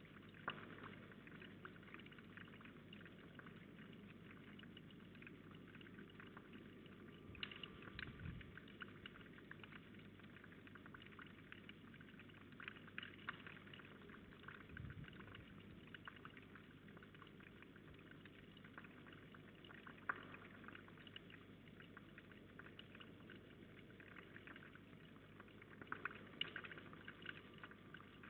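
Faint, steady trickle of water with scattered small drips and a few soft knocks. Near the end come a few louder splashes as a male Sardinian warbler bathes in the shallow pond.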